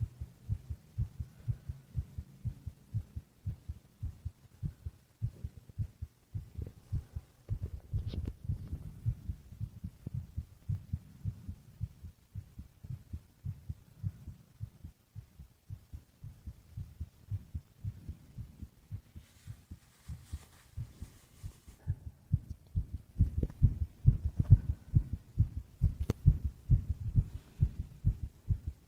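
A person's heartbeat heard close up through the chest: a steady run of low thumps, a little louder near the end.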